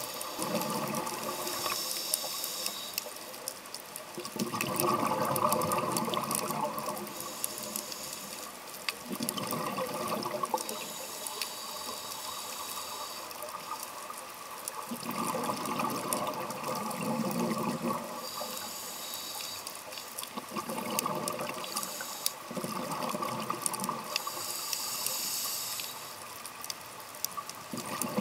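Scuba diver breathing through a regulator, recorded underwater. Each breath is a short hiss of inhaled air followed by a longer rush of exhaled bubbles, repeating about every five to six seconds.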